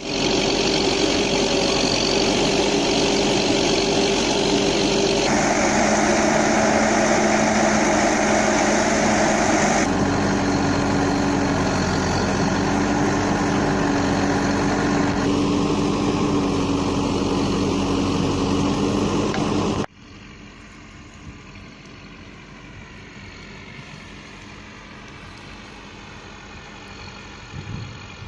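Engines of heavy construction machinery running steadily, in several clips cut together, each with its own steady hum. After about twenty seconds the sound cuts to a much quieter outdoor background.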